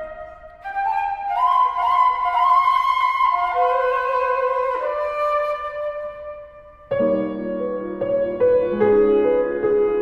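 Flute and piano duo: a solo flute line climbs in short stepwise notes. About seven seconds in, the piano comes in suddenly with repeated chords beneath it.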